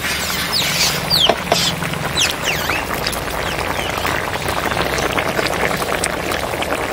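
Taro and prawn curry boiling hard in a wide pan, a steady dense bubbling full of small pops and bursts. Several quick falling chirps sound over it in the first couple of seconds.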